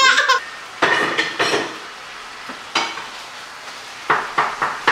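Kitchen utensil stirring and scraping in a dish, with a steady hiss and several sharp clinks of cutlery and dishes near the end.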